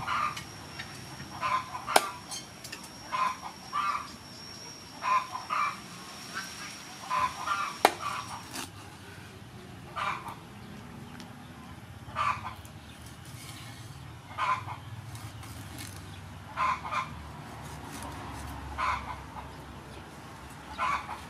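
Chickens clucking in short calls every second or two, with two sharp knocks of a cleaver on a wooden chopping board, about two and eight seconds in. A thin steady high whine runs under the first eight seconds or so.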